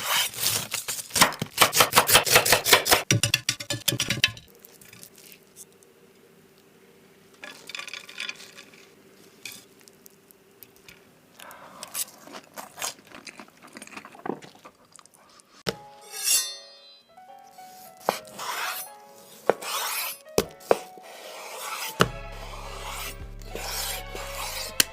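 Dishes and cutlery clattering, a dense rapid rattle for the first four seconds and then scattered clinks and scrapes. Background music with a steady low bass comes in near the end.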